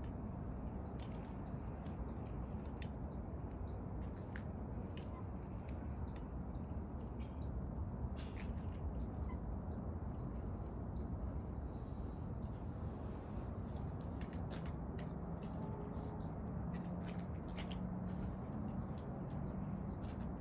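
Outdoor ambience: short, high-pitched chirps repeating about two to three times a second, over a steady low background rumble.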